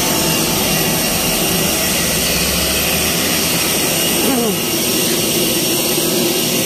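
Steady, loud rush of a parked airliner's jet turbine, with high whining tones over it, heard from the cabin door as passengers get off.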